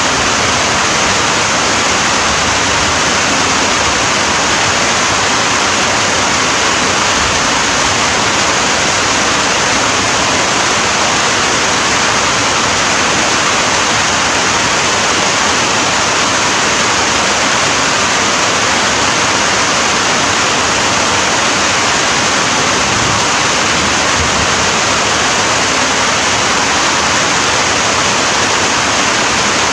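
Rain falling steadily: an even, unbroken hiss with no single drops or thunder standing out.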